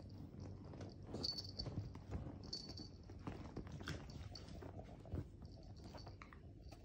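A long-haired dachshund shifting and turning on a leather sofa: its paws scrabble and tap on the cushion and brush a pile of clothes as it circles and lies down. The scuffs and taps are irregular, with a few brief high squeaks.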